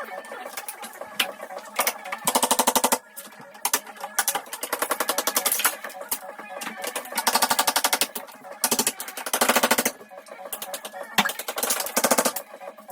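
Electric hammer drill running in repeated bursts of very rapid impacts, each about a second long, with short pauses between.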